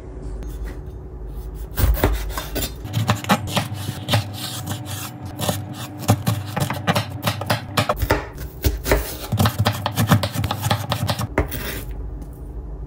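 Knife chopping vegetables on a cutting board: a quick, uneven run of knocks that starts about two seconds in and stops shortly before the end.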